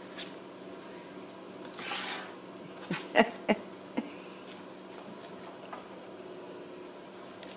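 Ragdoll kitten scrambling inside a hollow plastic toy car: a brief rustle about two seconds in, then four sharp plastic knocks in quick succession, the second the loudest.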